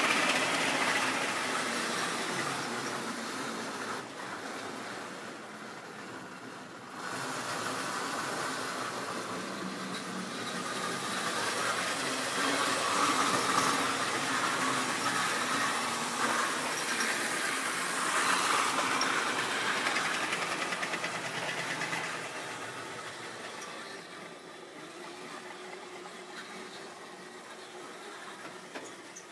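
Model railway trains running round the layout, small motors whirring and wheels rattling along the track. The sound gets suddenly louder about seven seconds in, swells and dips as the trains come near and move away, and fades over the last several seconds.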